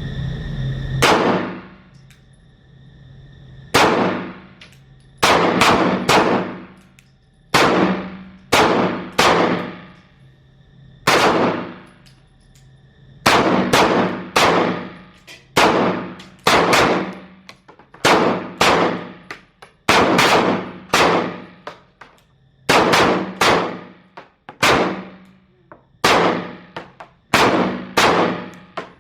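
Pistol shots from several shooters firing unhurried aimed fire: about thirty sharp reports at uneven intervals, sometimes two or three in quick succession, each with a short echoing tail.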